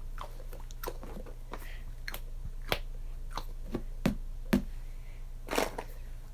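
Squishy fidget toy being squeezed and handled: irregular crackles and clicks, the loudest in the second half.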